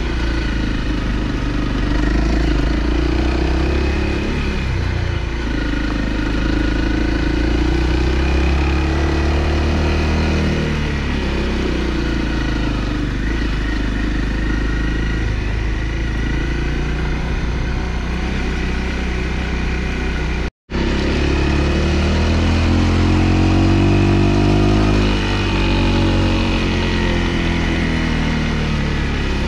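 Honda CRF250L single-cylinder four-stroke engine running under way, its pitch rising and falling as the throttle is worked, with a steady climb and drop-back near the end. The sound cuts out completely for an instant about two-thirds of the way through.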